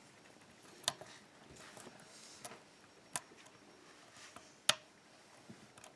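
Faint metallic clicks and light scraping of a half-diamond lock pick working the pins of an ASSA 5-pin oval cylinder under light tension; three sharp clicks stand out, the loudest about two-thirds of the way through.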